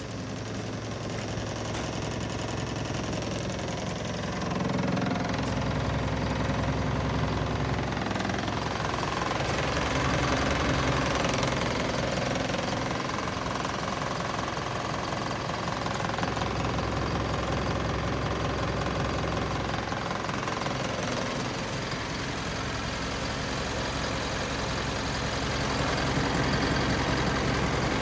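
Isuzu Elf truck's engine idling steadily, growing louder about four seconds in and swelling a little now and then.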